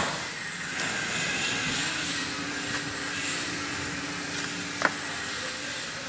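Steady mechanical running noise with a faint low hum, and one short sharp click about five seconds in.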